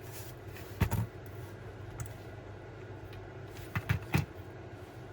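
Small sharp clicks and knocks of a model locomotive's motor being pushed and worked into its chassis that it won't slide into: two about a second in, then three close together near four seconds, over a steady low hum.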